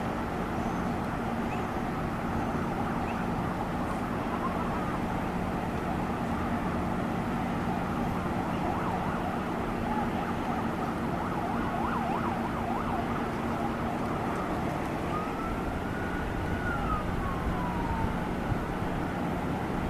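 Steady rushing outdoor noise with a constant low hum, and an emergency siren that rises and falls once about fifteen seconds in.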